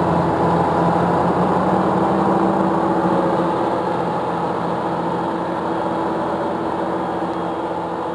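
John Deere 7930 tractor's six-cylinder diesel engine running steadily as the tractor drives over a silage clamp, packing the silage. It grows a little fainter as the tractor moves away.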